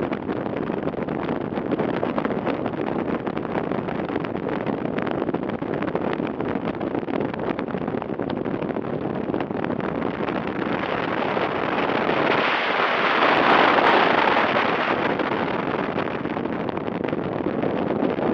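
Steady rushing noise of flash-flood water pouring down a wadi, mixed with wind buffeting the microphone. About two-thirds of the way through the noise swells louder and brighter for a few seconds, then settles back.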